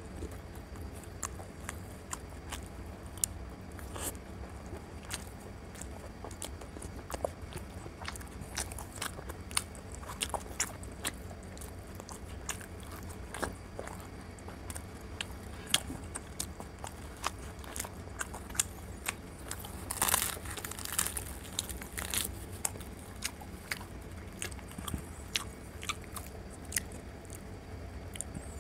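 Close-up eating sounds of a person chewing and biting into chicken curry, with many sharp wet mouth clicks and smacks. A denser run of crisp clicks comes about two-thirds of the way through, over a steady low hum.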